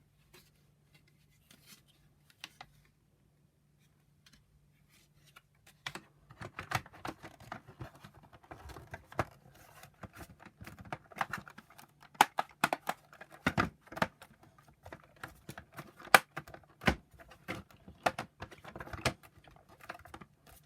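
Plastic parts of a vacuum power nozzle being handled and fitted together: irregular clicks and knocks that start about six seconds in and go on, some sharper and louder than others.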